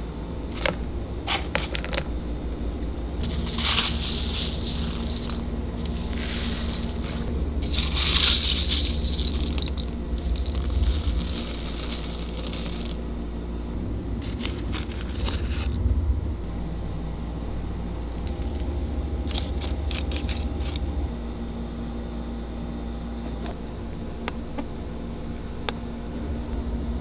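Hard tumbling-media pellets and small metal pen parts clattering and scraping as they are loaded into a barrel tumbler, in several bursts with scattered sharp clicks, over a steady low machine hum.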